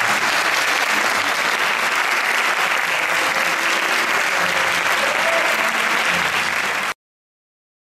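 Theatre audience applauding steadily, a dense clapping that cuts off abruptly near the end.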